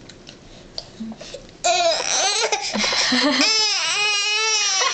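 Infant crying, breaking out suddenly about a second and a half in and going on in long, high-pitched cries that bend down and up in pitch: a baby protesting at being spoon-fed his first solid food.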